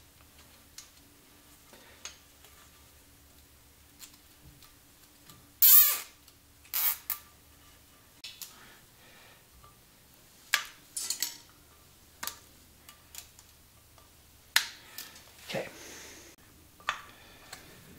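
Hands handling small metal parts and tools on a motorcycle: scattered clinks, clacks and short rattles at irregular moments, the loudest clusters about six seconds in and again around eleven and fifteen seconds, over a faint steady low hum.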